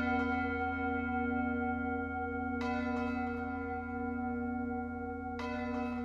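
A struck bell ringing with a long, slowly wavering low tone; it is struck again about two and a half seconds in and once more near the end, each strike adding bright overtones on top of the ringing.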